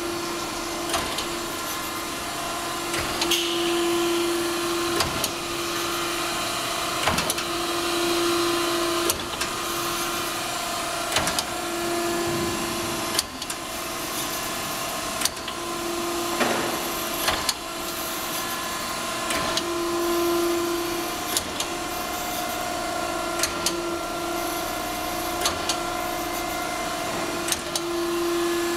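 Okamoto PSG-64AN surface grinding machine running with a steady hum. A lower tone swells and fades every few seconds, and sharp clicks come at irregular intervals.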